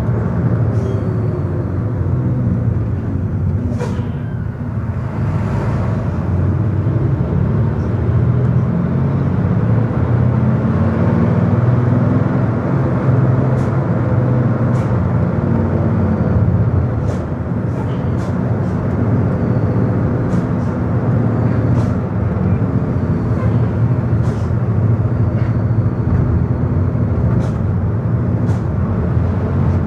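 Steady engine hum and tyre noise heard from inside a moving road vehicle, with faint clicks now and then.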